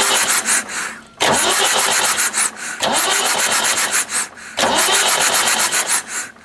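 Electric starter cranking a Massey Ferguson 590's Perkins 4.248 four-cylinder diesel in four bursts of about a second and a half, the engine turning over without firing. The rocker shaft assembly is off, so the cranking only drives the oil pump, pushing fresh oil up through the engine to flush water out.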